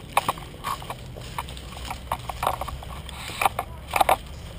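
Irregular sharp knocks and clicks, about a dozen over four seconds, the loudest pair near the end, over a low rumble.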